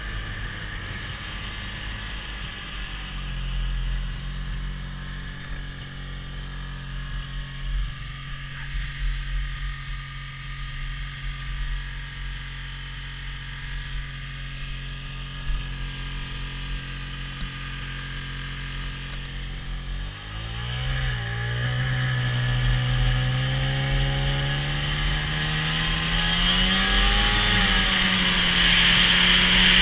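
Snowmobile engine idling steadily, then, about two-thirds of the way in, the throttle opens and the engine note climbs steadily as the sled accelerates away. The engine then holds at speed, with rising wind and track hiss.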